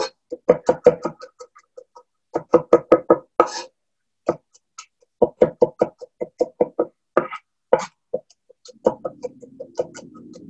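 Chef's knife rapidly chopping on a cutting board while mincing garlic cloves, a quick tapping of about six strikes a second in several bursts with short pauses between them.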